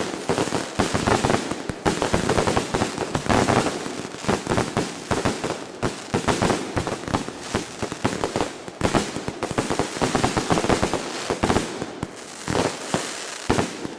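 Consumer fireworks going off as a long run of rapid crackling pops, thinning into separate pops near the end.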